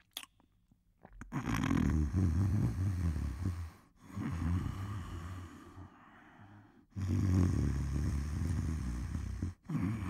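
A person snoring: two long, low snores of about two and a half seconds each. The first starts about a second in, a quieter breath lies between them, and a third snore begins near the end.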